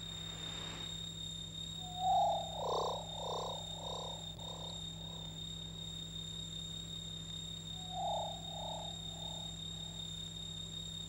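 A mid-pitched tone sounding about two seconds in and repeating about five times, each repeat fainter, like an echo; a shorter run of four fading repeats comes about eight seconds in. A steady low hum and a faint high whine run underneath.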